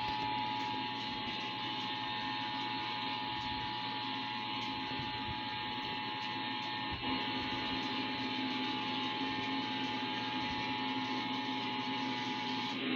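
Emergency Alert System attention signal for a Required Monthly Test: the steady two-tone 853 Hz and 960 Hz alert tone, held over a hissy broadcast audio feed, cutting off just before the end.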